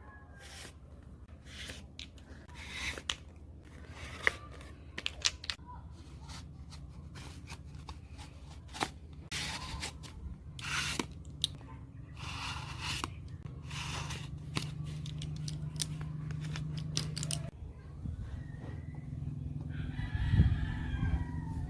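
Packaging being handled and torn open: irregular crinkling, rustling and tearing with sharp clicks, over a low steady hum.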